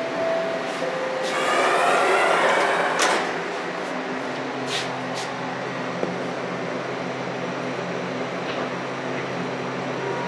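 Scarborough RT ICTS Mark I train heard from on board: its linear induction motor propulsion whines in steps and glides of pitch over the first few seconds, with a few sharp clicks, then settles into a steady running hum.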